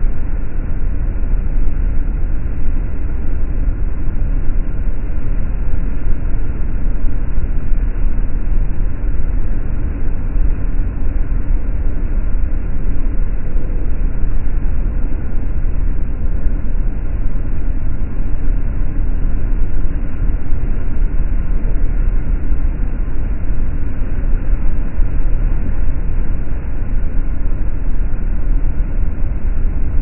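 Steady, loud, low rumble on the deck of a moving motorboat: wind buffeting the microphone over the boat's engine and wake noise. No gull calls stand out.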